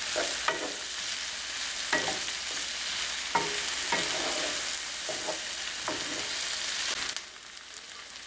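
Sliced onion, carrots and green peppers sizzling in oil in a nonstick frying pan while a wooden spoon stirs them, scraping and knocking against the pan several times. The sizzle drops off suddenly about seven seconds in.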